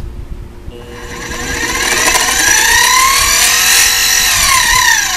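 SIEG X2D mini mill running in its high speed range: a click, then the 350 W variable-speed DC motor and spindle gears whine, rising in pitch as the spindle speeds up, holding, then falling as it slows near the end.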